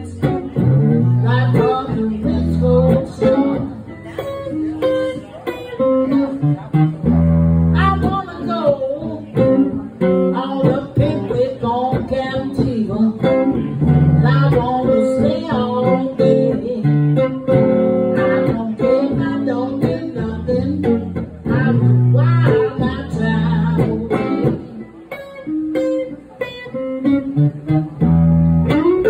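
Live, amplified solid-body electric guitar playing a blues tune: a steady run of picked notes over a repeating bass line.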